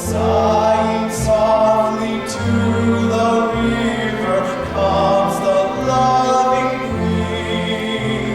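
Live operetta music: voices singing long held notes over instrumental accompaniment with a slow, steady bass line.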